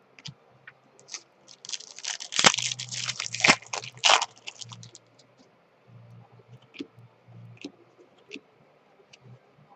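Crinkling, scratchy rustle of trading card packs and cards being handled, with small clicks. A dense stretch of crinkling lasts from about a second and a half to four seconds in, then only scattered light clicks.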